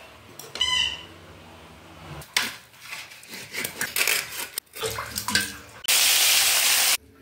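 Knife scraping and clicking on a fish in a steel plate as it is cleaned. Near the end comes about a second of loud, even sizzling from a fish steak frying in hot oil in an iron kadai, which stops abruptly.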